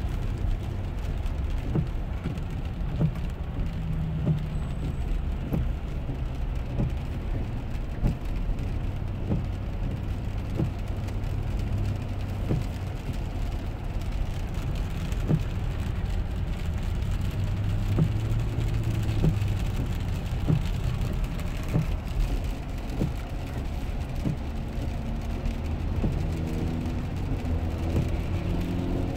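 Steady low rumble of road and engine noise inside the cabin of a 2007 Lexus LX 470 driving on a wet highway in rain, its Michelin Defender tyres on wet pavement. Rain and windshield wipers on the glass add a faint hiss, with soft knocks every second or so.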